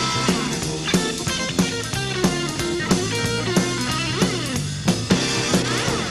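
Blues-rock band playing live: electric guitar lines over bass and a drum kit keeping a steady beat of roughly three hits every two seconds.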